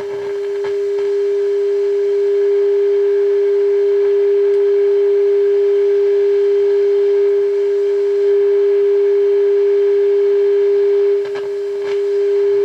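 Steady test tone from a signal generator, received and played through the Zenith AA5 radio's speaker while its oscillator is being aligned at the top of the dial. It swells slightly in the first two seconds and dips briefly near the end as the adjustment is made.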